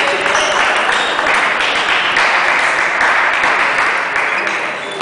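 Clapping and crowd noise filling a sports hall, with the light clicks of table tennis balls striking bats and table.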